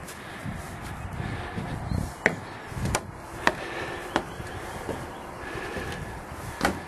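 Footsteps on the wooden plank floor of a small gazebo: a handful of sharp knocks, one every half to three quarters of a second, starting about two seconds in.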